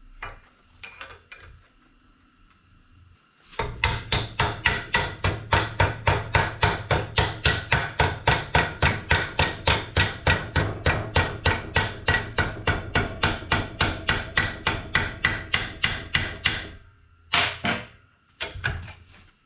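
Hammer striking steel in a fast, even run of blows, about four a second, each with a short metallic ring; the run stops abruptly, then a few single blows follow near the end.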